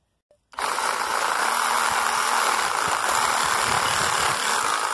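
An 18-volt cordless reciprocating saw starting up about half a second in and running steadily as it cuts through a thin branch.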